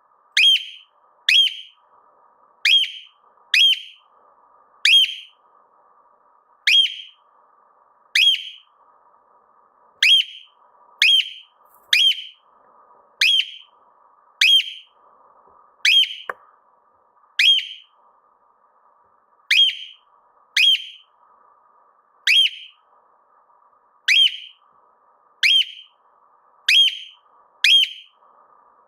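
Cockatiel calling over and over: short, shrill whistled calls that drop sharply in pitch, one about every one to two seconds.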